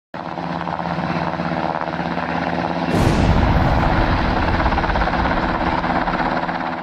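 A steady mechanical rumble like a heavy vehicle's engine running. It starts abruptly, gets louder about three seconds in and fades out at the end.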